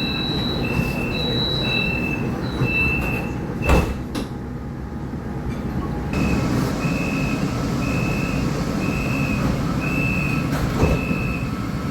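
Metro train door-closing chime: short high two-note beeps repeating about one and a half times a second, stopping after about three seconds, followed by a loud thump. Single-note beeps then start again about six seconds in, over the steady rumble of the train.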